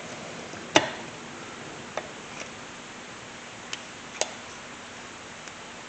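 A few sharp metallic clicks and taps as a ringed piston from a 2008 DS450 engine is rocked down into its cylinder bore, the loudest about a second in.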